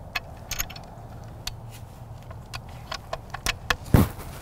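Scattered clicks and light knocks of a scoped rifle being handled and settled on its shooting tripod, with one louder thump about four seconds in.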